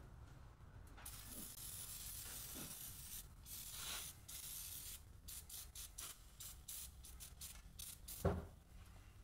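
Aerosol can of oven cleaner spraying foam onto a hot chrome motorcycle exhaust pipe: a long continuous hiss starting about a second in, then a run of short spurts. A single thump near the end.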